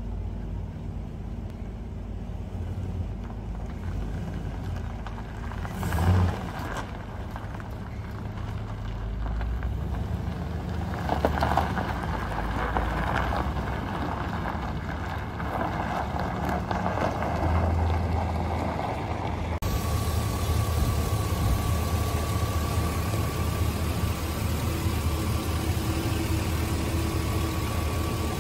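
Chevrolet Silverado's 6.0-litre Vortec V8 gas engine running as the truck moves across a gravel lot. About two-thirds of the way through it changes to the same engine idling steadily close up, with a thin steady whine over the idle.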